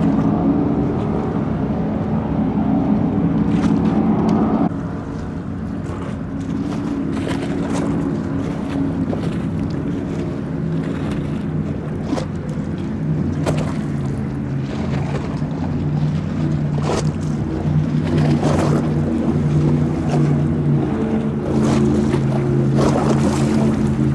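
High-performance offshore powerboat engines running at speed, a steady deep drone with gusts of wind on the microphone. The sound drops and changes abruptly about five seconds in, then holds steady.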